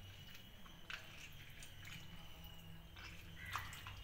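A hand squishing tomatoes and shallots in tamarind water in a steel pot, with soft wet sloshing and a few short splashes about a second in and near the end. A low steady hum runs underneath.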